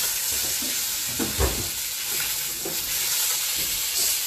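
Beef burger patties sizzling in a hot frying pan, a steady hiss with a few light knocks and scrapes of a utensil against the pan, the loudest about a second and a half in.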